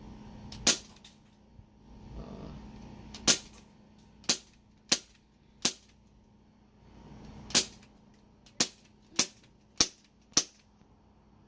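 CO2-powered airsoft pistol firing about ten sharp single shots: five spread over the first half, then after a pause five more at roughly one shot every half second.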